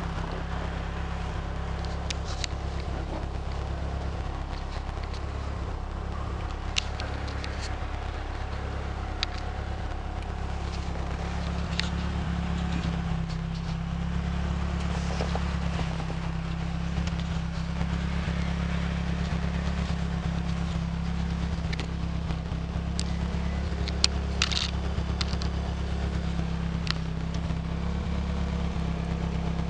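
Nissan Silvia S14's turbocharged SR20DET four-cylinder idling steadily through a one-off bullet-shaped muffler, with a few sharp clicks.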